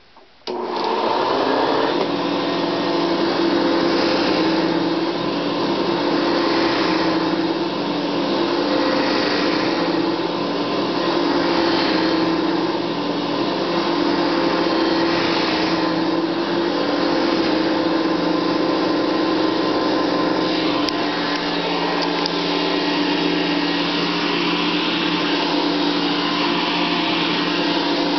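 Hoover Convertible upright vacuum cleaner switched on about half a second in, then running steadily in floor-cleaning mode with its motor hum and brush roll, the sound swelling and easing about every two seconds.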